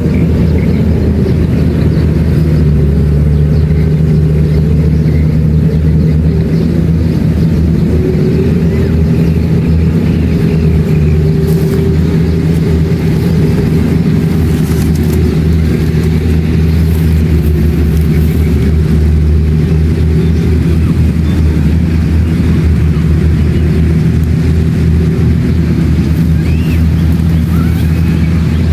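Kubota DC-70 Plus combine harvester running steadily while harvesting rice: a loud, even diesel engine drone with a low hum, holding the same pitch and level throughout.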